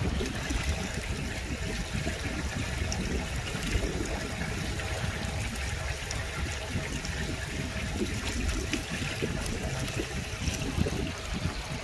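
Muddy rainwater runoff flowing fast over concrete, a steady churning, foaming water sound.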